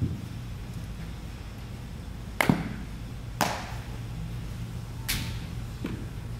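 Sharp smacks of a baseball during an infielder's fielding and throwing drill, several in a row a second or two apart, with a double smack about two and a half seconds in. Each has a short echo, and a steady low hum runs underneath.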